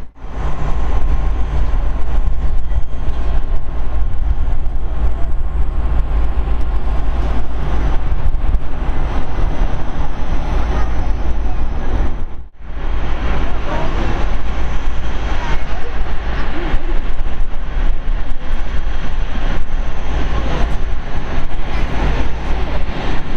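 Boeing 777 jet engines during the landing rollout and then taxiing, under a heavy rumble of wind on the microphone. The sound breaks off abruptly at the start and again about halfway, at cuts in the recording.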